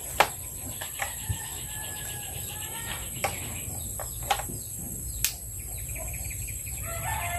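Rural outdoor ambience: birds chirping and calling over a steady high insect drone, with several short sharp clicks scattered through it, the loudest about a quarter second in.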